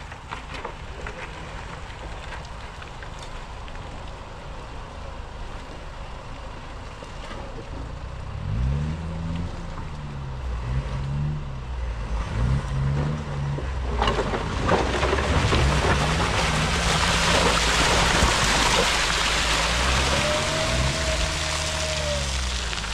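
Land Rover Freelander's engine revving up and down again and again as it works through deep muddy ruts. From about halfway, a loud hiss of tyres churning and splashing through mud and water joins in.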